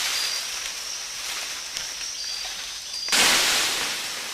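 Rainforest ambience: a steady high-pitched insect drone with a few short high chirps. About three seconds in, a sudden loud rush of noise fades away over about a second.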